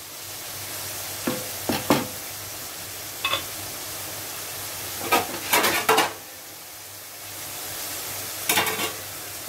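Small bitter gourd pieces and onion sizzling steadily in a non-stick kadai just after a quarter glass of water has been added, with short scrapes and knocks of utensils on the pan a few times.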